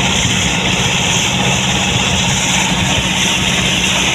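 A fishing boat's engine running steadily: a low, even drone under a constant hiss.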